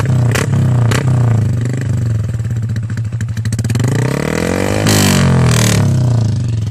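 Motorcycle with a loud aftermarket 'tho nu' exhaust running, with sharp cracks in the first second. It is revved up from about four seconds in, peaks about five seconds in and drops back.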